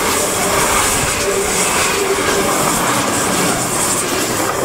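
A Deutsche Bahn ICE high-speed electric train passing through a station: a loud, steady rush of wheels on rails and air along the train. Its last car goes by near the end.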